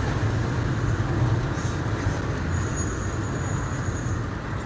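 Car driving on an unpaved road, heard from inside the cabin: a steady low engine and tyre rumble with road noise. A thin high whistle comes in for a second or two in the middle.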